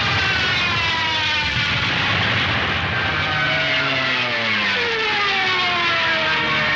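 Junkers Ju 87 Stuka dive bombers screaming in a dive, with several overlapping tones sliding down in pitch one after another.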